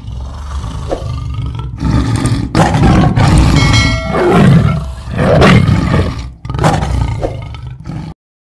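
Tiger roaring repeatedly, deep and loud, the sound cutting off abruptly near the end.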